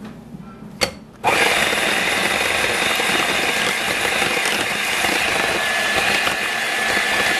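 A click, then an electric hand mixer switches on about a second in and runs steadily, its twin beaters whipping thin custard batter in a glass bowl.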